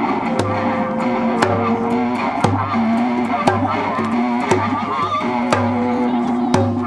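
Band music with electric guitar and hand drum: a steady low beat about once a second with sharp drum strikes, under held notes and a wavering high melody line.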